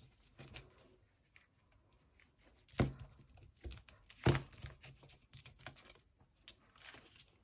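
Paper scraps rustling and crinkling as they are handled, with two sharp knocks about three and four seconds in.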